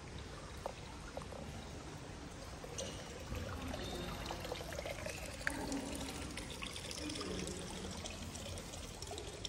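Water steadily pouring and trickling.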